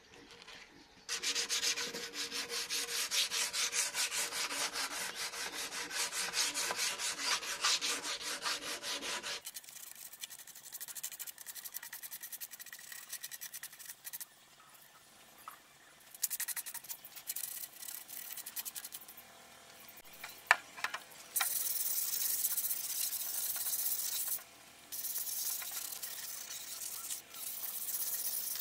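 Sandpaper rubbed by hand over a carved wooden panel in rapid back-and-forth strokes for several seconds, then in shorter, scattered passes. A single sharp tick comes about two-thirds of the way through.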